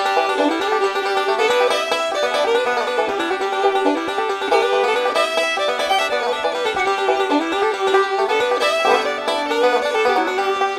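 Background instrumental music with a quick run of plucked-string notes.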